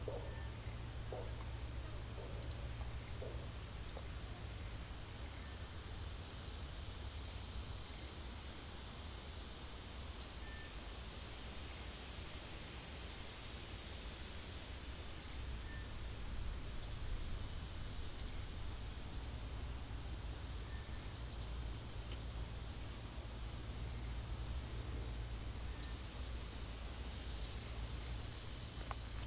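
Forest ambience: a bird repeats short, high, upward-sliding chirps every second or two over a steady high-pitched insect drone and a low rumble. A few soft knocks sound in the first three seconds.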